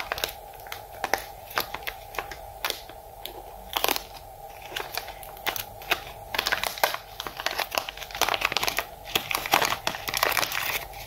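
Clear plastic bag crinkling and crackling as it is handled in the hands, in irregular bursts of crackles that grow busier about halfway through.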